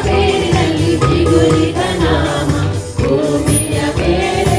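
Kannada Christian worship song: singing with sustained, held notes over a full band accompaniment.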